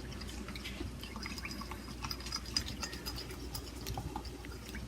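A utensil stirring a cornstarch-and-water slurry in a small dish, making faint, scattered light clicks and taps against the dish.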